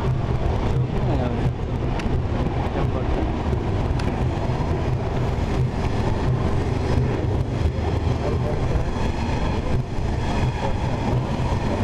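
Steady low rumble of railway station platform ambience, unchanging throughout.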